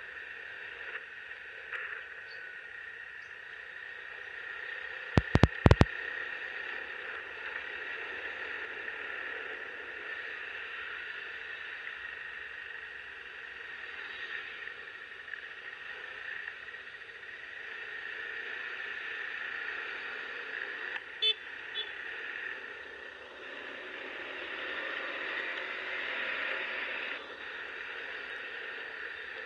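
Steady running noise of a vehicle on the road, with a quick cluster of sharp, loud clicks about five seconds in and a couple of fainter ones about twenty-one seconds in.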